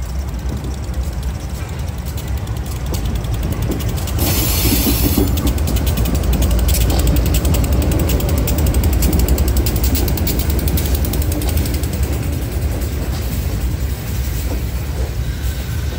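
Diesel-hauled freight train rolling past: a low rumble with a fast, rattling clatter of wheels and cars on the rails, getting louder about four seconds in.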